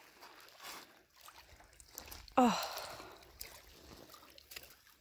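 A woman's short gasp, falling in pitch, about two and a half seconds in as she steps barefoot into shallow lake water over pebbles. Faint splashing and lapping of water around her feet.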